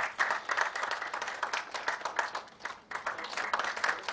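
Audience applauding, many hands clapping at once. The clapping thins briefly just before three seconds in, then picks up again.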